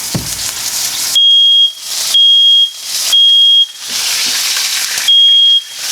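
Smoke alarm sounding a loud high-pitched beep in groups of three, each beep about half a second long and a second apart, with a pause between groups, set off by smoke from chicken burning in a frying pan. The pan sizzles before the first beep and between the beeps.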